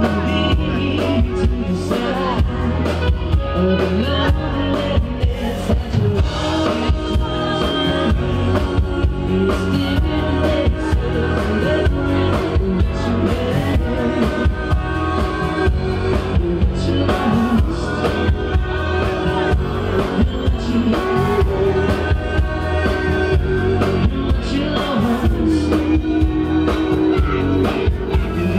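A live rock band playing steadily: electric bass and drum kit, with a man singing lead over them.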